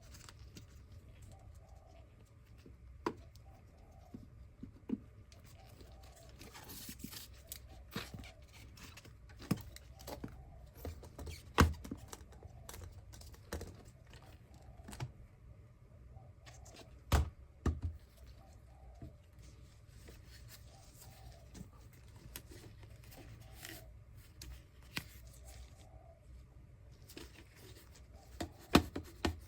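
Scattered clicks, knocks and light rustling of a cordless vacuum cleaner's plastic parts being handled and worked on, with a few sharper knocks standing out.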